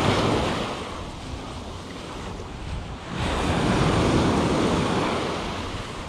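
Small waves breaking and washing up a sandy beach: one surge fading over the first second, another building about three seconds in and slowly dying away. A low wind rumble on the microphone runs underneath.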